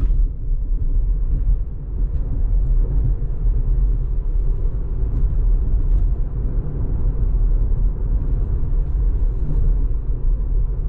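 Steady low rumble of tyre and road noise heard inside the cabin of a Tesla Model 3 driving at road speed. It is an electric car, so there is no engine note.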